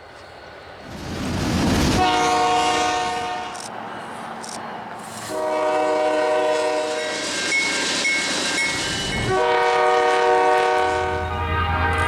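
Freight train's lead diesel locomotive, CSX 5319, sounding its multi-tone air horn in three long blasts as it approaches. A low diesel engine rumble comes in near the end.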